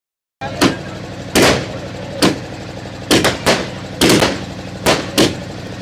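Firecrackers bursting one after another, about nine sharp bangs at uneven intervals, over a steady low hum.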